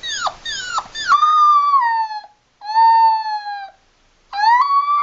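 Puppy howling: three quick yelps falling in pitch, then three drawn-out howls, each sliding downward. The last howl begins about four seconds in.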